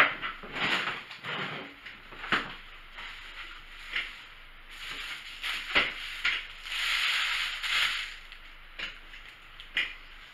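Paper food bags and wrappers rustling and crinkling as they are handled, with a few sharp clicks and knocks in between. The longest rustle comes about two-thirds of the way through.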